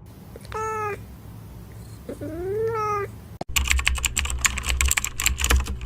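A cat meows twice: a short call, then a longer one that rises in pitch. About halfway in, rapid computer-keyboard typing starts, a dense run of clicks.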